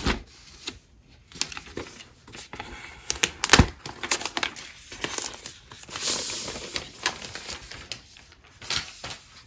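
Crinkling and crackling of the thin plastic protective film as it is peeled off the back of a new iPad Pro, with scattered light clicks and one sharp tap about three and a half seconds in.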